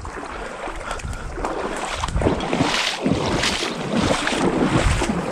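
Wind buffeting the microphone, with irregular surges of water sloshing in a shallow pond.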